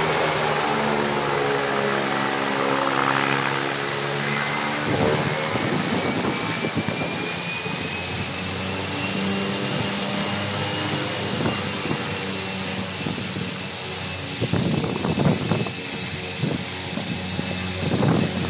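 Turboprop engine and propeller of a Thrush S2R-T34 Turbo Thrush crop-duster running as the plane taxis away: a steady propeller drone under a thin turbine whine that slowly rises in pitch. From about five seconds in, gusty buffeting and crackling on the microphone join it, strongest near the end.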